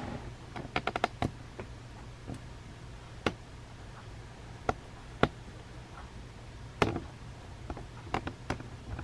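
Scattered light clicks and taps of handling: a quick run of them about a second in, single ones spaced through the middle, and a few more near the end, over a steady low hum.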